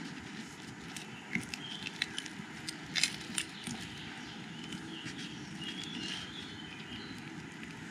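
A pan-fried flour tortilla wrap crackling and clicking as it is rolled up by hand on a wooden cutting board, in a cluster of sharp crackles about one to three and a half seconds in. Faint short bird chirps in the background.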